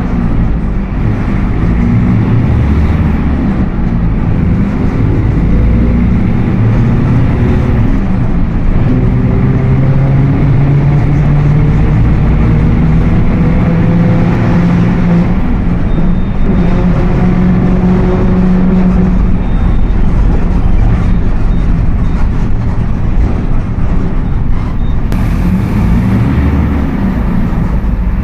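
Mercedes-Benz OF 1721 BlueTec 5 bus driving, engine running with a growling whine from the rear axle whose pitch climbs and drops with road speed: the sign of a faulty differential.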